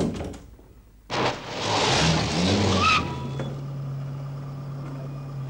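A thud, then about a second in a car engine revs up as the car pulls away fast, with a short tyre squeal, and settles into a steady running hum.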